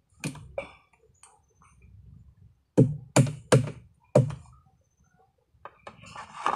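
Close handling noise: a couple of light clicks, then four sharp knocks in quick succession, then light rustling, as hands work at something near the microphone.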